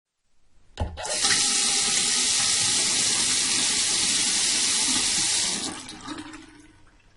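Bathroom sink tap turned on after a short knock, water running steadily into the basin for about four and a half seconds, then shut off, the flow trailing away to a few faint drips.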